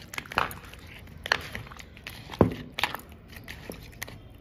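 Raw fish pieces coated in salt and turmeric being mixed by hand in a plastic bowl: irregular wet squelches and sharp smacks as the pieces knock together and against the bowl, the loudest about two and a half seconds in.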